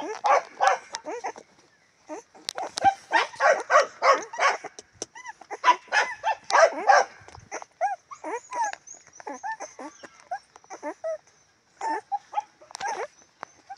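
Young nursing puppies yelping and squealing in many short, rising-and-falling calls that overlap one another, with a brief lull about two seconds in.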